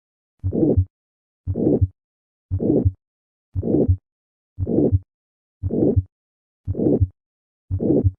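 Heart sounds of aortic stenosis auscultated at the cardiac apex, about one beat a second: each beat is a low first heart sound, then a harsh diamond-shaped (crescendo-decrescendo) systolic ejection murmur, then the second sound, with a silent pause between beats. Heard at the apex, the murmur takes on a higher pitch, the Gallavardin phenomenon.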